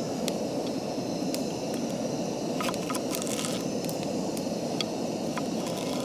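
Kitchen knife slicing a cucumber on a wooden cutting board: a few light clicks and taps of the blade meeting the board, most of them about three seconds in, over a steady low rushing background.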